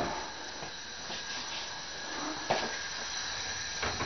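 Steady hiss from a pan on a lit gas burner, with two light kitchen knocks, one past the middle and one near the end.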